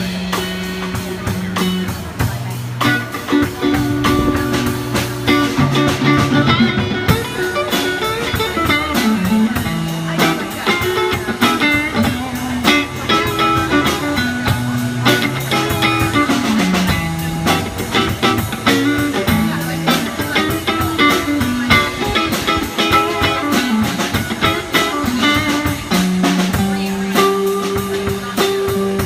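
Blues jam on guitar and drum kit: the guitar plays a running lead line of single notes and chord stabs over a steady drum beat with cymbals.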